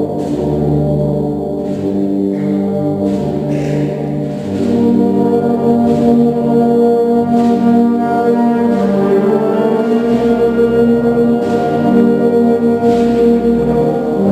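Wind band playing a Spanish Holy Week processional march: sustained brass chords over low bass notes, growing louder about four and a half seconds in.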